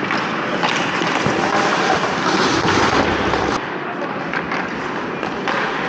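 Ice hockey skates scraping and cutting the ice close by as the goalie shuffles in the crease, with sharp clacks of sticks and puck scattered through it.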